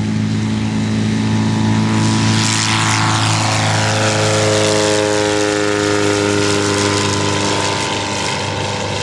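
Preceptor Ultra Pup light aircraft taking off at full power: its engine and propeller run steadily and loudly, and from about two and a half seconds in the pitch falls as the plane climbs past and away.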